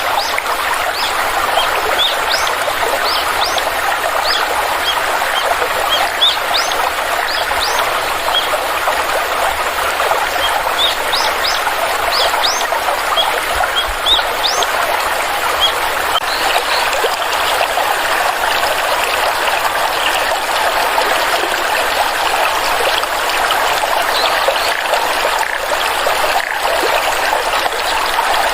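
Shallow stream trickling and splashing steadily, with small birds giving many short rising chirps over the first half that thin out later on.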